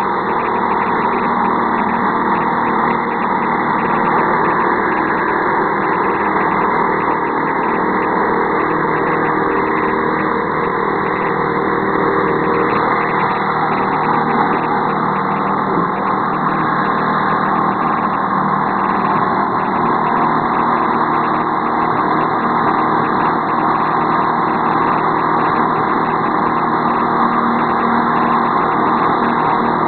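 Small single-cylinder petrol engine of a 6.5 hp walk-behind sweeper running steadily at a constant speed.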